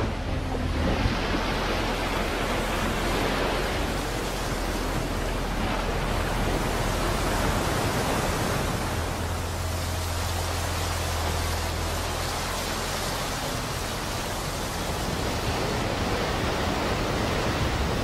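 Steady rush of water pouring off wet river gravel as a dredger dumps it, over a low machine hum that fades about two-thirds of the way through.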